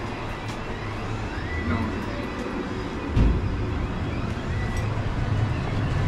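Newly installed Armstrong gas furnace running just after its first ignition, a steady low motor hum with faint whine tones above it. A heavy thump about three seconds in.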